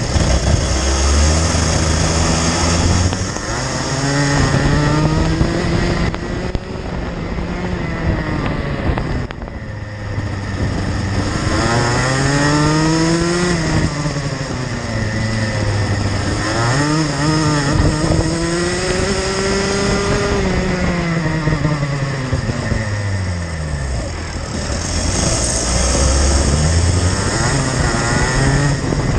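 Racing kart engine heard from on board, its pitch climbing steadily as it accelerates and then dropping sharply as it comes off the throttle, five or six times over, lap after lap on the circuit.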